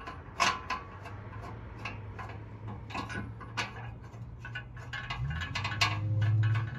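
Small metallic clicks and taps of bolts and a steel hitch receiver being handled against a vehicle frame as the bolts are started by hand. About five seconds in, a steady low hum comes in and gets louder.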